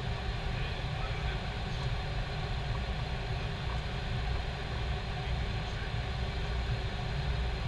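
Steady flight-deck noise of an Airbus A321 descending on approach: an even low rumble with a constant hiss of airflow and engines over it.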